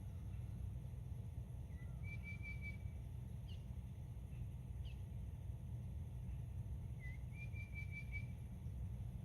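A bird calling outdoors: a short trilled call about two seconds in and another about seven seconds in, with two quick downward chirps between them. Under it runs a steady low rumble, the loudest sound throughout.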